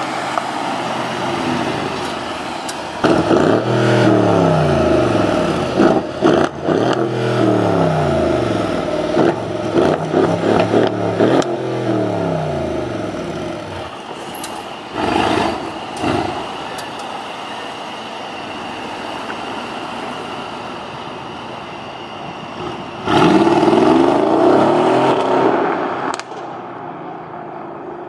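Mercedes-AMG GLE 63 S Coupe's twin-turbo V8 being revved hard several times in quick succession, the pitch climbing and falling each time, with crackles and pops from the exhaust. Then a short loud burst, steadier running, and one more rev near the end.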